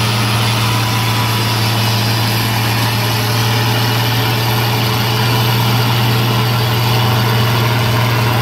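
Diesel engine of a red antique tractor working hard under load while it pulls a weight-transfer sled. The note is deep and steady and climbs slightly past the middle.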